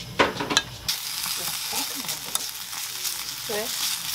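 Diced beef dropped into a hot nonstick frying pan, a few pieces clattering onto the pan in the first second, then sizzling steadily from about a second in as it is stirred with a spatula.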